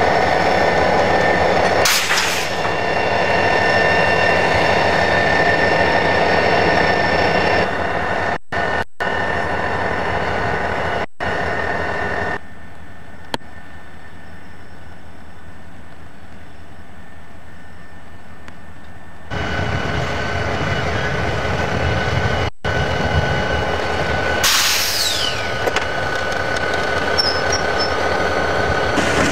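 Diesel locomotive engines idling steadily beside the track, with two short sharp hisses, about two seconds in and again near the end. The sound drops for a few seconds in the middle.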